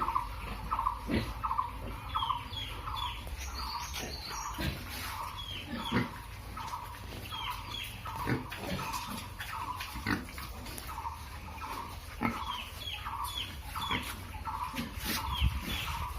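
Pigs grunting on a farm, with scattered short low sounds. A steady chirping of short calls repeats about twice a second throughout.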